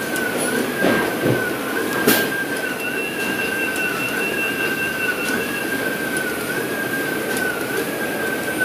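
Heidelberg Speedmaster SM 52 two-colour offset press running at full speed: a steady high whine that wavers in pitch about once a second, over a dense mechanical rumble. A second, fainter and higher whine joins for about three seconds in the middle, and a few brief clicks sound early on.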